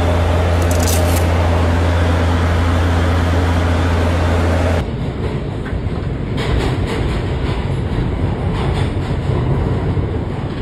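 Steady cabin noise of an aircraft cockpit in flight: a loud, even drone with a strong low hum. About five seconds in, it cuts abruptly to the rumble and rattle of a train or subway car in motion, with scattered clicks.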